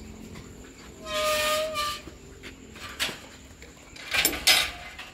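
Wild boar in a pen giving a high-pitched squeal lasting about a second, then a click and two short, loud, harsh noises near the end.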